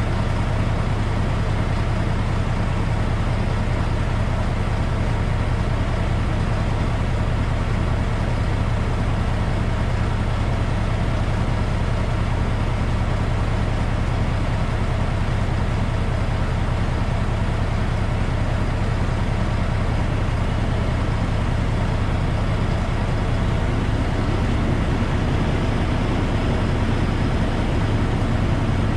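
A log truck's diesel engine running steadily with a constant low drone.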